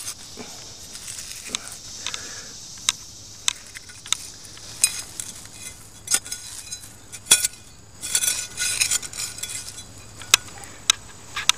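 Double-serrated blade of a Lesche Sampson T-handle digging shovel being driven into and scraping through soil, with sharp metallic clinks spread through and a longer stretch of crunching scrape about two-thirds of the way in.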